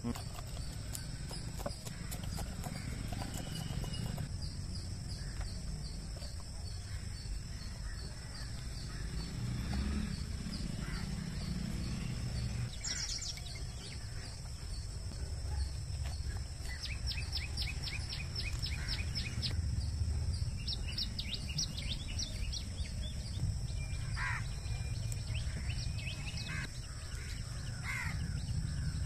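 Rural outdoor ambience: a steady high insect drone, with birds chirping in short rapid series at intervals. Under it runs a low rumble of scratching and handling as a whole katla fish is scaled by hand.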